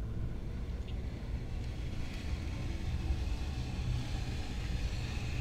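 Steady low background rumble of room noise, with a faint hiss joining about two seconds in.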